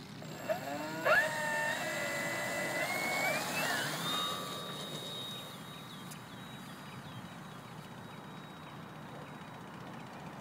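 Electric motor and propeller of an FMS Corsair RC plane powered by a 4S lipo, spinning up to takeoff throttle: a whine that rises steeply in pitch over about three seconds, then holds as a steady high whine that grows fainter as the plane takes off and flies away. Two short knocks come just before the spin-up.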